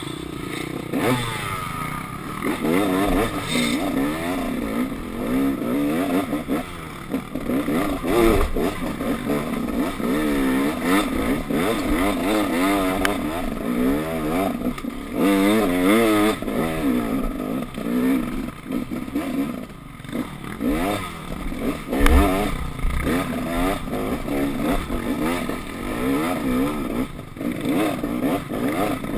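KTM enduro motorcycle engine being ridden off-road, its revs rising and falling every second or two as the throttle is worked. There is a sharp thump about 22 seconds in.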